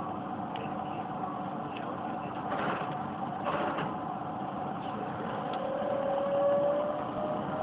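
Steady electrical and mechanical hum inside the cab of a Keisei 3700 series electric train standing at a station, with two short rushes of noise about three seconds in. From about five and a half seconds in, a thin whine rises in pitch as the traction motors start to pull the train away.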